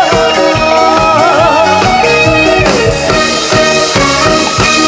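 Trot song accompaniment playing its closing bars, with a steady drum beat under a wavering melody line.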